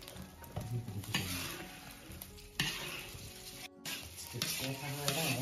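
Beaten egg sizzling in oil in a large black wok, with a spatula scraping and stirring against the wok. The sizzle flares up sharply about a second in and again about two and a half seconds in.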